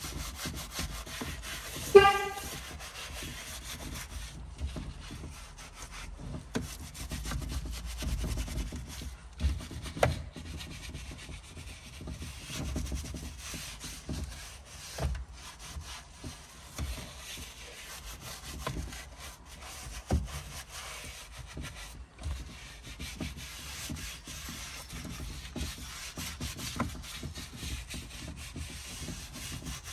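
Microfibre cloth and gloved hands rubbing and wiping a car's steering wheel coated in cleaner, a continuous scuffing with a few light knocks. About two seconds in there is one brief, loud, high squeak.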